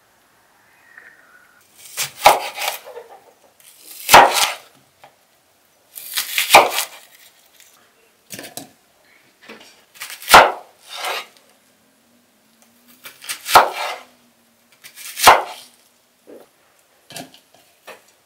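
Kitchen knife slicing through a red onion and striking a wooden cutting board: about six sharp knocks, one every one to three seconds.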